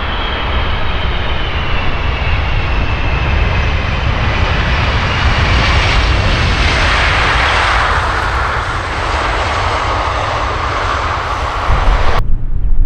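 Large aircraft flying past, its engine whine gliding down in pitch as it goes by and loudest about halfway through, over a steady low rumble. The sound cuts off abruptly near the end.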